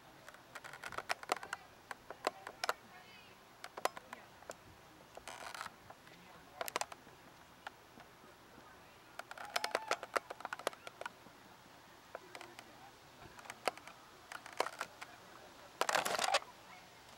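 Scattered sharp clicks and taps, with faint voices in between; the densest cluster of clicks comes near the end.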